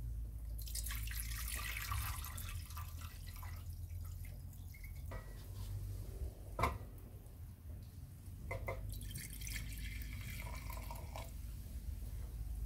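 Water poured from a jug into a stainless saucepan around a glass jar, then distilled white vinegar poured from a bottle into the jar. A single sharp knock comes between the two pours.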